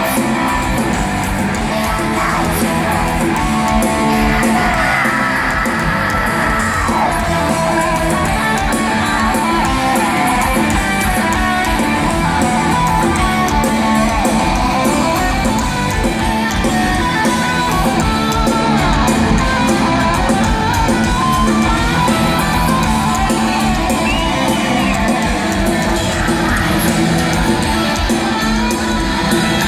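Heavy metal band playing live through the concert PA, loud and steady, with electric guitars out front, heard from the audience.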